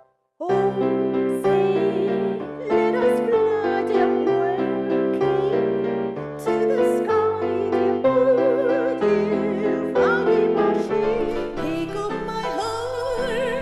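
Piano playing under a classically trained voice singing in operatic style, its held notes wavering with wide vibrato. The sound drops out for a split second at the very start.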